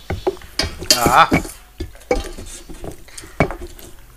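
Close-miked eating with the hands: wet sucking and smacking on fish-head bones, and fingers scraping and tapping on steel plates, heard as a string of short sharp clicks. A brief voiced sound about a second in.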